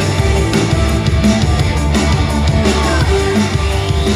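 Loud backing music with a heavy bass line and a steady beat.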